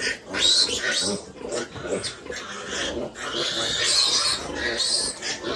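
Pigs vocalising, a run of many short, irregular, overlapping calls.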